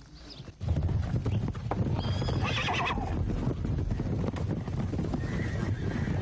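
A herd of horses galloping, a dense rumble of many hooves setting in about half a second in. One horse whinnies about two seconds in, with a fainter call near the end.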